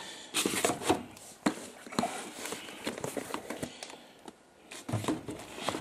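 Irregular knocks, taps and rustling from handling around an open metal tool box drawer.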